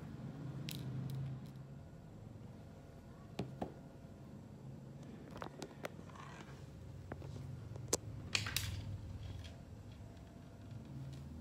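Faint handling of plastic food containers: a few sharp clicks and knocks, the loudest about eight seconds in, followed by a brief rustle, over a low steady hum.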